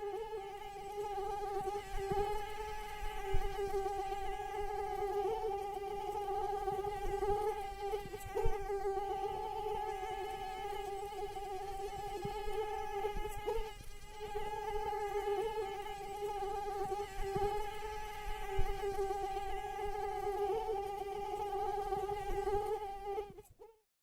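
A mosquito's wings humming in a steady, slightly wavering high whine, with a few soft low knocks underneath; it stops abruptly near the end.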